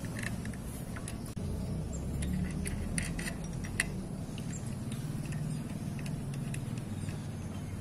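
Small, irregular metallic clicks of a spanner and the clutch spring bolts of a Honda EX5 Dream clutch being worked by hand, over a steady low hum.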